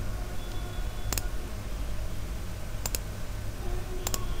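Computer mouse buttons clicking: three or four single sharp clicks spaced a second or two apart, over a steady low hum.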